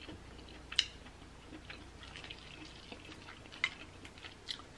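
Faint, scattered wet clicks and smacks from eating saucy king crab legs by hand, with a few sharper clicks standing out.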